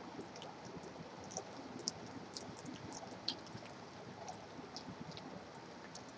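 Rain falling steadily as a faint, even hiss, with scattered sharp drips ticking, two of them louder, over a low wash of distant highway traffic.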